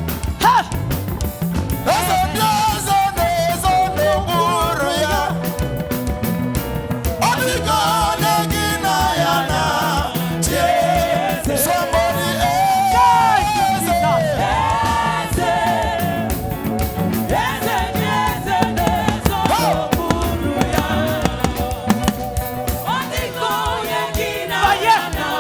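Live gospel praise music: a band with a steady beat and drums, with singing over it.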